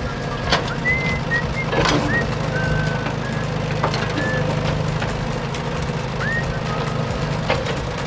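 A steady low hum with a dozen short, high whistled chirps over it, some sliding upward and some held briefly, and a few sharp clicks.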